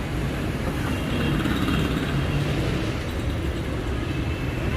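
Steady low rumbling background noise of motor vehicles, with no distinct events.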